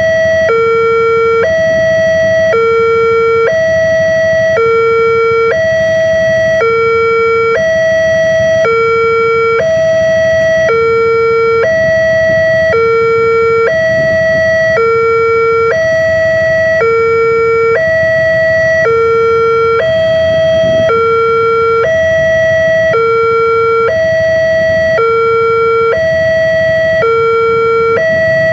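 Railway level-crossing warning alarm sounding a steady two-tone electronic chime, a higher and a lower tone alternating in an even rhythm, each held under a second: the signal that the barrier is down for an approaching train. A low rumble runs beneath it.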